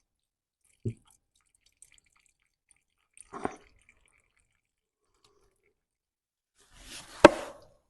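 Old, thick wax oil just starting to drip slowly from its container: a few isolated drops, a soft one about a second in, another midway, and the sharpest near the end.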